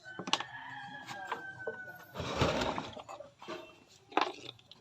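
An animal call held at one slightly falling pitch for about two seconds, then a short loud rush of noise and a sharp click near the end.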